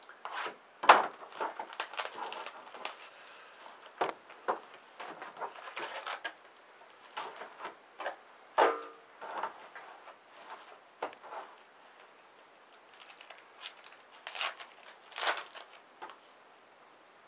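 Crinkling and rustling of plastic wrap and foil trading-card packs, with scattered light clicks and taps on a tabletop, as a sealed box of hockey cards is opened and its packs pulled out and stacked.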